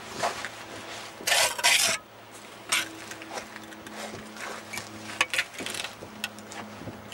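Clinks and scrapes of perforated clay bricks and an aluminium spirit level being handled on a brick chimney top, with a louder rushing scrape about a second and a half in. A faint steady hum runs underneath.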